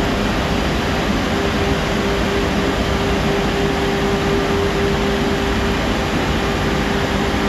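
Automatic car wash running: large rotating side brushes scrubbing a car, a steady rush of noise with a constant machine hum underneath.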